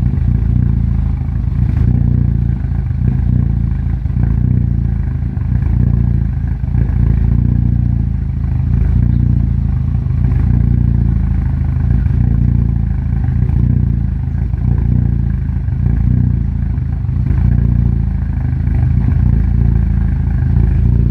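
Engine idling roughly and unevenly, its sound swelling and dipping every second or two.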